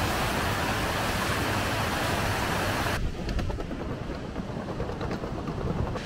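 Waterfall's steady rushing noise, cutting off suddenly about halfway through and replaced by a quieter, lower rumble with a few faint clicks.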